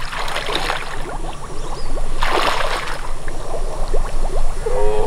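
Shallow, muddy water sloshing and splashing around a person's legs as they wade, with a louder splash about two seconds in.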